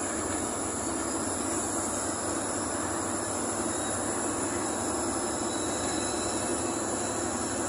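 Steady engine and road noise inside a moving bus, with a constant high whine.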